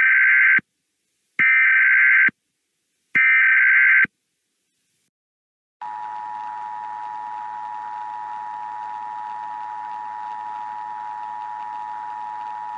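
Emergency Alert System SAME header: three bursts of warbling data tones about a second apart. After a short pause comes the steady two-tone EAS attention signal, with a faint hiss beneath it, announcing the alert that follows.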